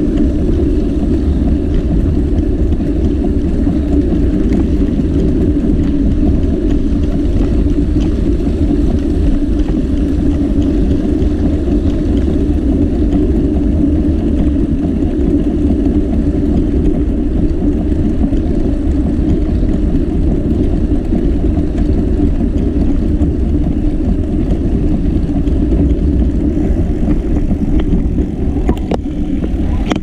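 Steady rumbling rush of riding a bicycle: wind buffeting the microphone, with the tyres rolling on a concrete path.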